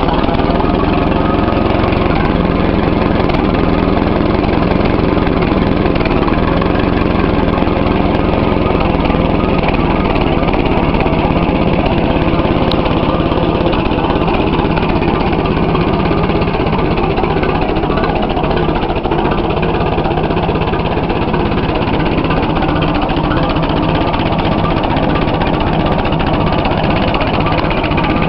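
1944 Fordson Standard N tractor's four-cylinder side-valve engine, converted to coil ignition, idling steadily with an even, unbroken running sound.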